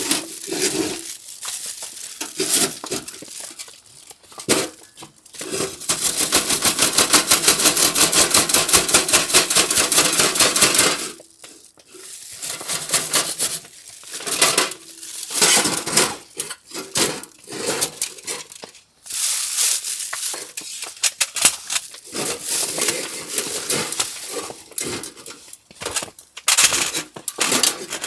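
Camping gear being handled and packed up: irregular clinks, rattles and rustles, with a fast, even rasping that runs for about five seconds starting about six seconds in.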